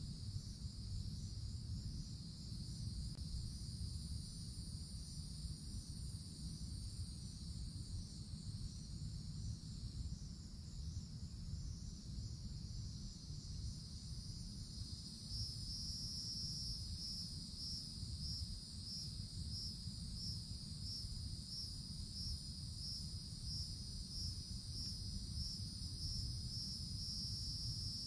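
A chorus of cicadas keeps up a steady high buzz in the tree canopy. About halfway through, a rhythmic pulsing call joins, repeating a little over once a second. A low steady rumble runs underneath.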